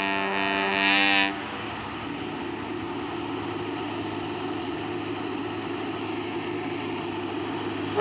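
Truck's telolet musical air horn holding a bright multi-tone chord, cutting off about a second and a half in; after it the truck's engine runs steadily.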